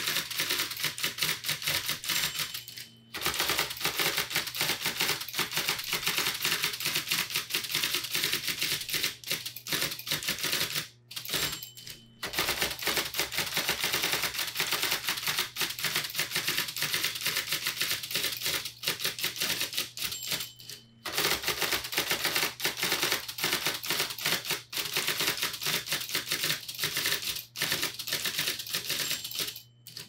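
IBM Selectric Model 1 electric typewriter typed on rapidly, a dense run of sharp clacks broken by a few brief pauses, over the steady low hum of its running motor.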